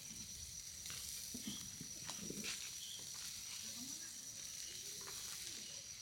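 Marinated tenderloin barbecue sizzling faintly on a small portable grill, with a few light clicks. A steady high-pitched tone runs in the background.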